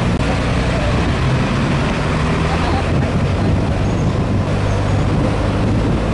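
Open-air truck's engine running steadily while climbing a hill road, with road and wind noise.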